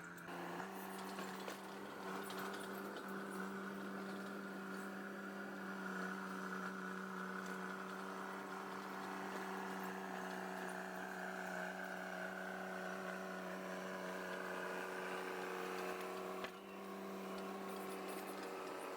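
Diesel engine of a Cat Drott track loader running at a steady speed, a constant pitched hum with a brief dip near the end.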